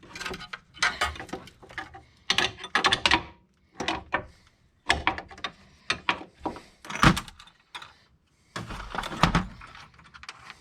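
Irregular metallic clanks and rattles of hand tools working on a rusted sway bar end link, with one sharp, hard knock about seven seconds in.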